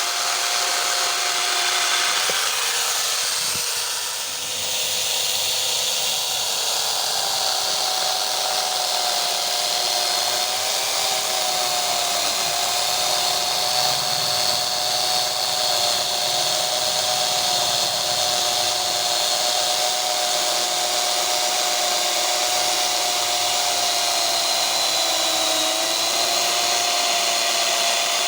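Electric angle grinder converted to a chainsaw, running steadily with a high motor whine while its chain cuts wood. The pitch sags briefly near the start and again near the end as the chain bites under load.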